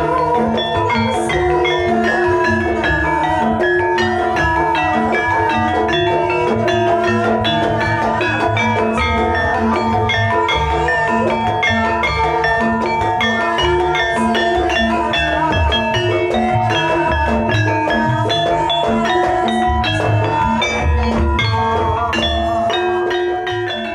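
Javanese gamelan music: struck metal mallet instruments play interlocking pitched notes over a steady low beat, beginning to fade out near the end.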